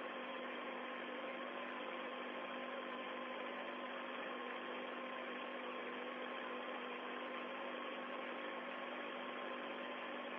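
Steady hiss with a faint, even hum and whine from an open spacecraft radio voice channel, carrying no speech.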